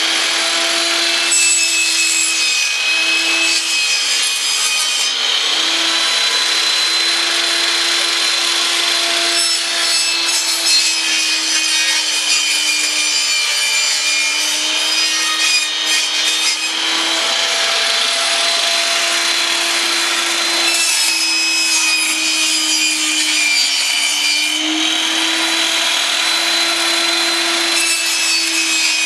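Portable 10-inch benchtop table saw running at full speed with a steady whine, cutting through the sides of a wooden box one side after another; the whine dips briefly as the blade takes each cut.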